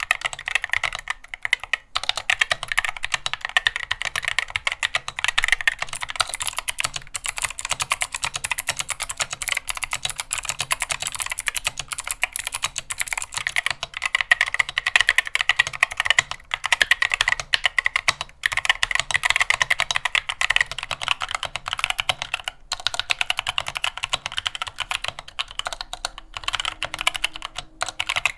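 Fast, continuous typing on a mechanical keyboard fitted with Gateron Optical switches. The different switch types (Yellow, Blue, Red, Brown, Black) are played in turn, with a few short breaks in the typing.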